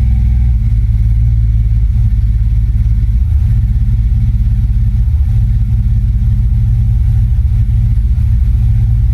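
1998 GMC Jimmy's 4.3 L V6 engine running steadily at idle, a loud, even low drone.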